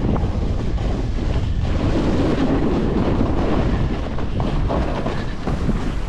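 Snowboard riding over tracked snow: the board's base and edges scrape and rumble steadily as it slides and turns, with wind buffeting the microphone.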